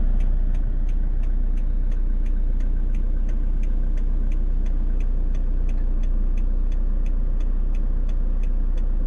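Inside a car: a steady low engine hum under a rapid, very regular ticking of about three ticks a second.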